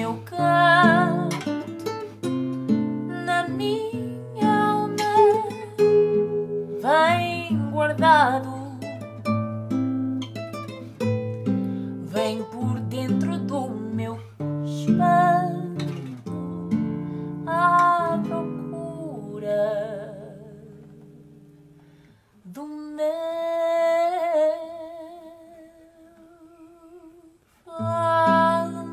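A woman singing a fado in Portuguese, accompanied by classical guitar. About 20 seconds in the guitar fades out. After a brief gap she holds one long note with vibrato on her own, and the guitar comes back in near the end.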